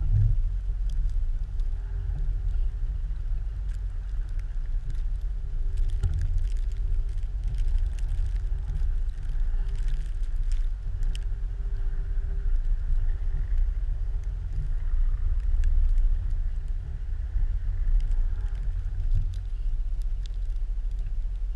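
Jeep Grand Cherokee ZJ driving slowly through a foot of fresh snow, with a steady low rumble of the engine and drivetrain. A faint steady tone sits over the rumble, and there are a few light clicks in the middle.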